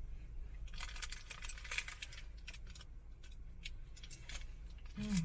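Scattered light clicks and rustles of small objects being handled inside a moving car, over the steady low hum of the cabin.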